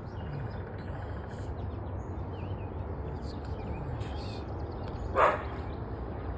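Birds chirping and calling over a steady low rumble. About five seconds in, one short, loud call stands out above the rest.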